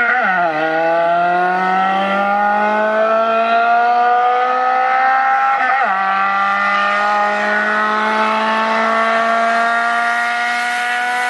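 Car engine pulling hard under acceleration, its pitch climbing steadily and dropping sharply at two gear changes, about half a second in and again near six seconds.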